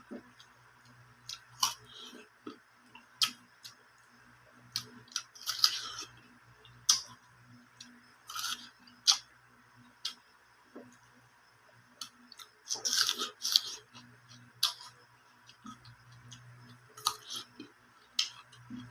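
Close-up crunchy biting and chewing of raw fruit or vegetables: irregular crisp crunches and clicks, with louder clusters of crunching around five to six seconds in and again around thirteen seconds in.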